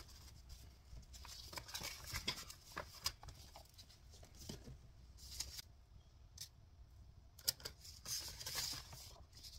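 Paper rustling and small taps as a stack of banknotes is handled on a table, then a paper sheet is shuffled and slid across the table near the end.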